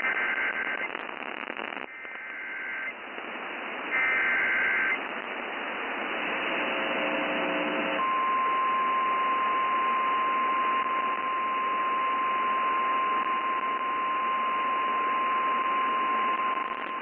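Emergency Alert System header received over the radio: three one-second bursts of SAME data tones warbling between two pitches, about two seconds apart. A brief cluster of steady low tones follows, then the single-tone 1050 Hz attention signal holds steady for about nine seconds, all over radio hiss.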